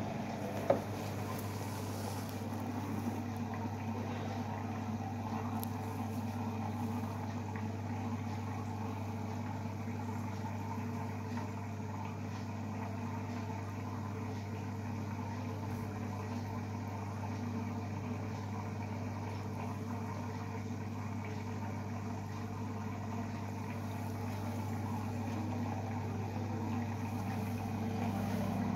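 Aquarium pump humming steadily, with one sharp click about a second in.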